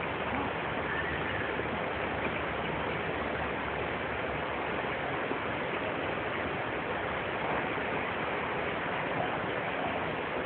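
Steady rushing of flowing river water, an even noise with no change in level.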